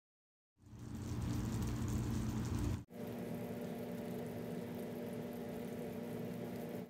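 Food frying in oil in a pan: a steady sizzle with a low hum beneath it, starting about half a second in and dropping out for an instant near three seconds.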